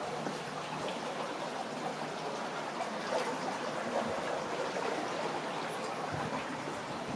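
Water flowing steadily along a village waterway channel.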